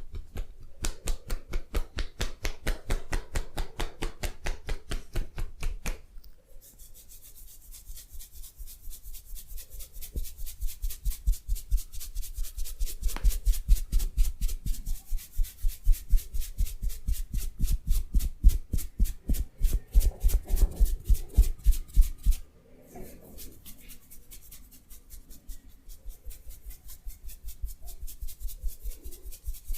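Hands massaging a body in fast, even, repeated strokes, several a second, rubbing and slapping against skin. The stroke pattern changes about six seconds in and again about twenty-two seconds in.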